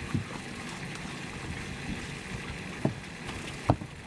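Water lapping and splashing against a fishing boat's hull, with a few short knocks on the boat, the loudest near the end.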